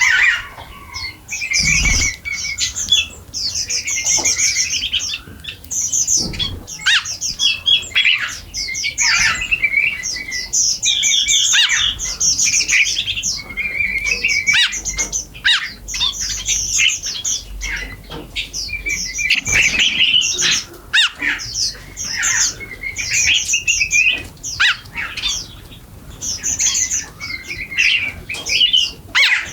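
A flock of small birds chirping and calling busily over one another while feeding, in rapid high chirps with a few brief low thumps.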